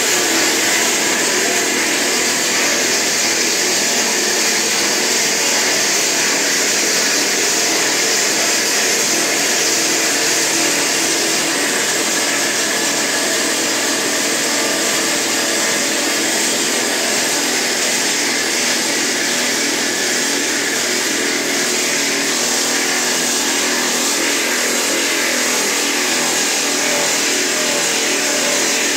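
Drill jumbo working at a tunnel face: a loud, steady mechanical noise with a strong hiss over a low hum, unbroken throughout.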